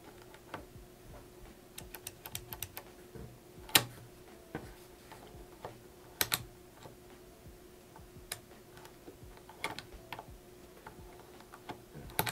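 Small metal clicks and snaps from the levers of a Really Right Stuff SC-ARC bipod clamp being flipped by hand, about a dozen scattered clicks with the sharpest about four and six seconds in.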